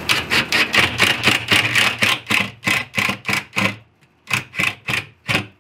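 Background music with a quick, even beat of sharp strummed pulses, which pauses briefly and then cuts off abruptly near the end.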